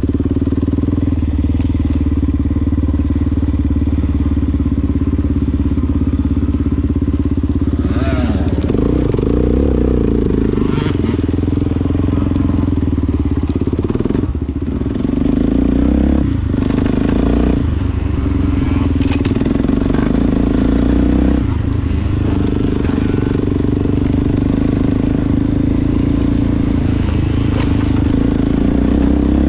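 Off-road vehicle engine running while riding, holding a steady note that shifts briefly several times through the middle of the stretch.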